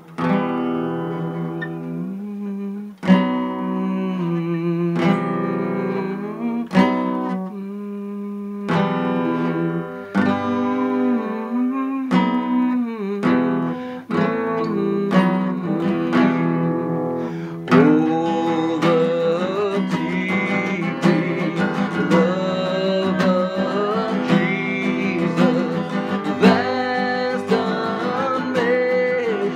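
Acoustic guitar strumming a slow hymn, one chord stroke every second or two. About eighteen seconds in, a voice joins, singing or humming the melody over the guitar.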